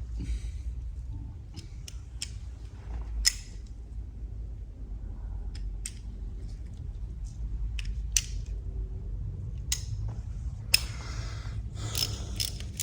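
Scattered light clicks and knocks from hand tools and parts being handled during workshop work on a motorcycle engine, with a few brief rustles, over a low steady hum.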